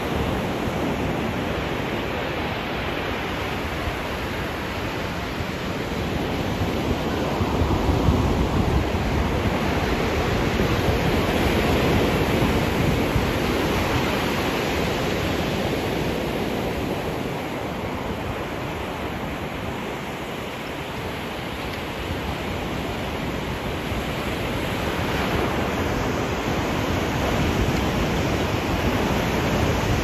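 Ocean surf breaking and washing up a sandy beach: a steady rushing that swells louder about a third of the way in, eases, and builds again near the end.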